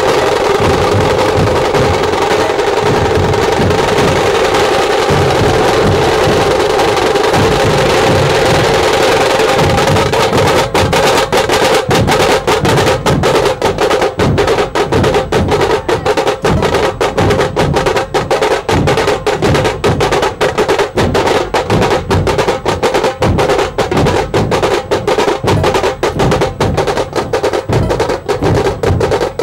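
A Maharashtrian dhol ensemble of many large barrel drums playing together. For the first ten seconds or so it is a dense, continuous roll. Then it breaks into a fast, steady beat of sharp strikes.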